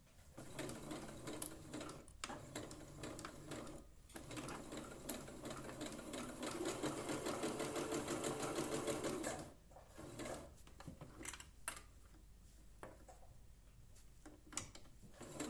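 Minerva electronic sewing machine running a straight stitch around the edge of layered nonwoven fabric, a fast even stitching rhythm with short stops about two and four seconds in. It is at its loudest from about six to nine seconds in, then goes much quieter with a few clicks, picking up again near the end.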